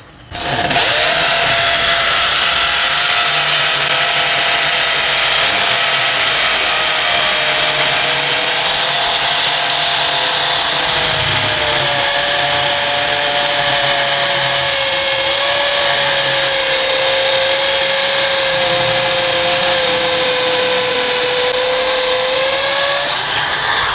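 Oshima K550 550-watt corded hammer drill in hammer mode, drilling into a concrete block with a masonry bit. It starts about half a second in, runs loud and steady with its motor pitch slowly dropping, and stops just before the end.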